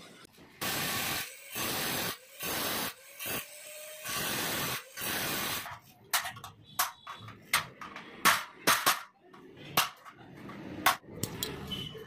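Five harsh, noisy strokes of about half a second each, then a quick string of sharp metallic taps and clicks from a steel nail worked against a stainless steel lock part; the taps are the loudest sounds.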